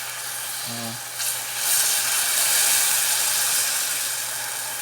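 Cold water poured onto hot caramelized sugar in a pan, hissing and sizzling loudly as it flashes to steam. The hiss swells about a second in.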